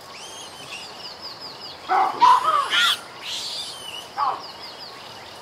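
High-pitched animal calls: runs of short falling chirps, with a burst of louder, gliding calls about two to three seconds in and another loud call just after four seconds, over a steady high hiss.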